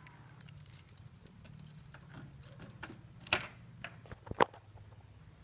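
A few sharp clicks and knocks from handling the fishing gear strapped on a motorbike, the loudest about a third of the way in and again just past the middle, over a faint steady low hum.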